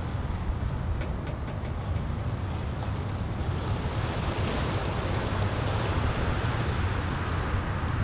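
Strong Santa Ana wind rushing through a pine tree, with a low rumble of wind buffeting the microphone. The rush swells a little louder about halfway through as a gust builds.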